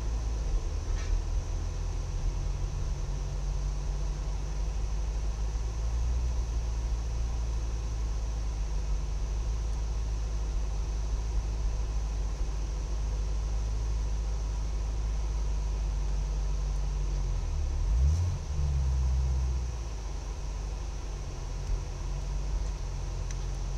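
Car engine idling in neutral while the car rolls slowly, heard from inside the cabin as a steady deep sound, with a brief swell in the engine note about eighteen seconds in.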